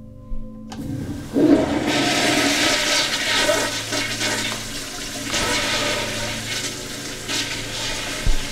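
A loud rush of water starts suddenly under a second in, surges a moment later, and keeps going.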